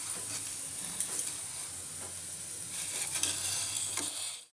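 Patties deep-frying in hot oil: a steady sizzling hiss with scattered crackles and pops, cutting off abruptly near the end.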